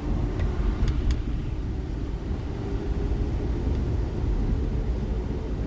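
Steady low rumble of road and engine noise inside a moving car's cabin, tyres running on wet pavement, with a few faint clicks about a second in.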